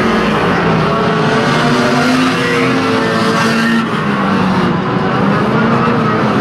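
Several banger racing cars' engines revving at once in a pile-up, their pitches rising and falling over one another.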